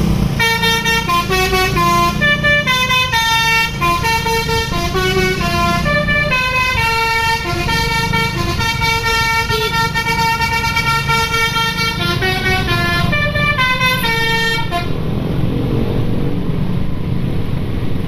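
A bus's telolet horn, a multi-tone musical air horn, playing a tune: quick changing notes, then longer held notes, then quick notes again, stopping about fifteen seconds in. A low engine rumble runs underneath.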